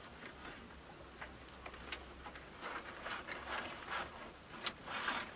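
Rustling and scraping of vine cord being pulled and tied around wooden bed slats, with scattered light clicks of the poles knocking.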